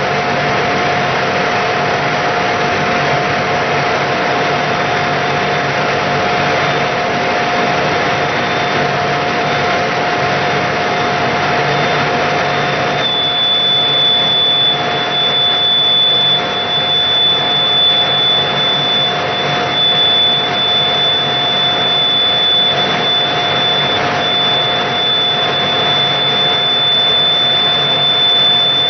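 Brake test rig running with a steady mechanical whir and a steady mid-pitched tone. About halfway through, a high, steady squeal comes in sharply and holds: the disc brake starting to squeal under constant brake pressure once the rotor speed passes its critical speed of about 30 rpm.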